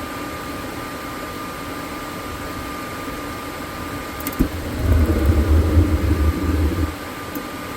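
RV propane furnace with its blower fan running steadily with a thin whine. About four seconds in, there is a click, then the burner lights with a loud low rumble for about two seconds and cuts out abruptly. This is the fault of a furnace that ignites and then immediately shuts off, later cured by putting a half-full propane tank on the main side.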